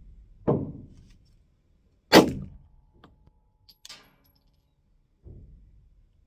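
Glock 45 9mm pistol being fired with 147-grain ammunition: a few separate shots a second or more apart, the loudest about two seconds in.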